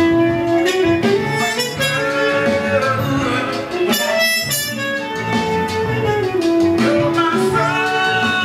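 Muted trumpet playing a melody of long held notes along with a soul record of guitar, bass and drums.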